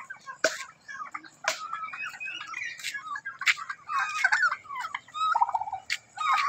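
Domestic turkey toms gobbling again and again, several birds calling over one another in quick warbling rattles. Sharp clicks come in between, about once a second.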